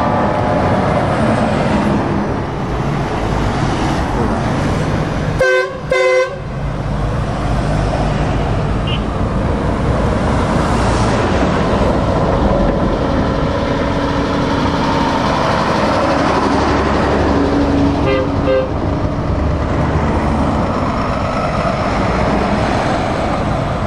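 Heavy trucks passing close by with engines running and steady road rumble. A truck's air horn gives two short blasts about five and a half seconds in, and a fainter horn sounds twice later on.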